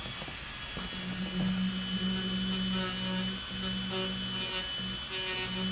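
Dremel rotary tool running at high speed with a steady high whine, sanding down cured vinyl repair compound in a dashboard crack. From about a second in, a lower hum comes and goes as the bit works the surface.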